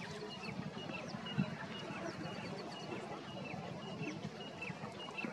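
Small birds chirping: many short, high, repeated chirps and quick falling notes over low background noise. A single dull thump about a second and a half in.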